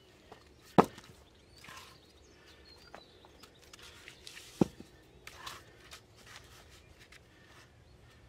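Split firewood knocked down wood on wood: two sharp knocks, one about a second in and a louder one a few seconds later. Soft footsteps shuffle on gravel and wood chips between them.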